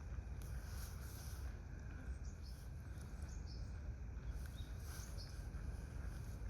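Outdoor ambience: a steady low rumble, with a few faint, short, high bird chirps scattered through the middle.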